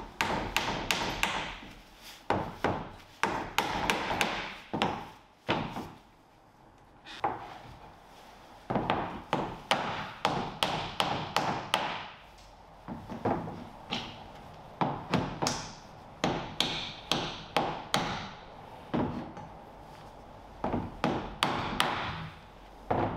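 Claw hammer driving copper nails through plywood trim and clenching them over against a backing held behind: runs of quick, sharp blows with short pauses between runs.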